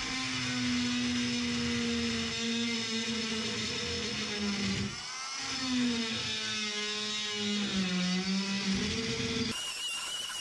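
Oscillating multi-tool with a metal-cutting blade buzzing as it cuts into car-body sheet metal. Its pitch drops briefly about halfway through, glides back up, and sags lower again under load. Near the end a higher, wavering squeal of the blade on the metal takes over.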